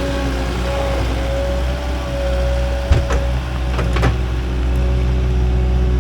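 Diesel engine of a compact track loader running steadily, with a steady high whine over it and two sharp metal clanks about three and four seconds in.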